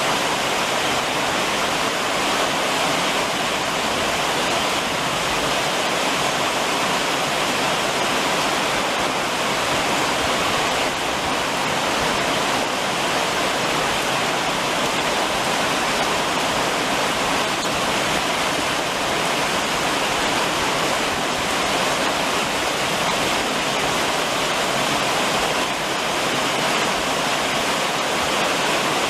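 Steady summer rain drumming on a roof, a dense, even rushing hiss with no single drops standing out.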